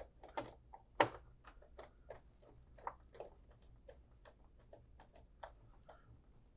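Small screwdriver working the screws of a power supply's screw terminal block: a string of light, irregular metallic clicks and ticks, a few a second, the sharpest about a second in.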